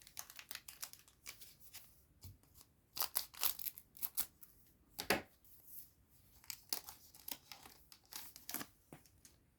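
Foil trading-card booster pack being torn open and crinkled, with the cards handled: a string of short crackling rustles, loudest around the middle.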